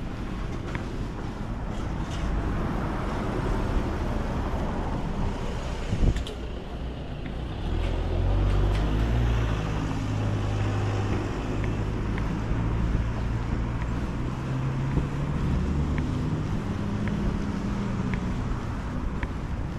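Street traffic: a motor vehicle's engine running close by, a low steady hum that swells about eight seconds in over the general traffic noise, with one sharp knock about six seconds in.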